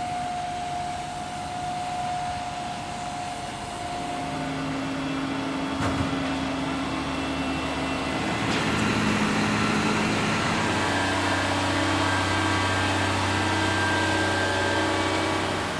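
Construction machinery running steadily, its engine note shifting a few times, with a sharp knock about six seconds in.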